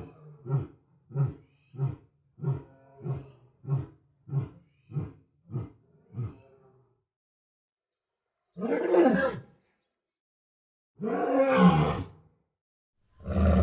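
Lion roaring: a fading series of about ten short deep grunts, roughly one every 0.6 seconds, then after a pause two longer full roars, with another starting at the very end.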